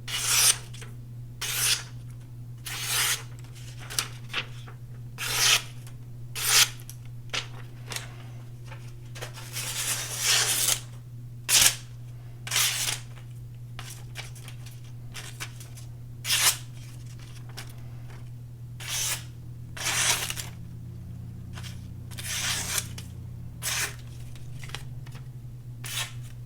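Freshly sharpened edge of a full-size Vero Axon knife slicing through phone book paper in a sharpness test: a long series of short, crisp slicing strokes, about one a second. A steady low hum runs underneath.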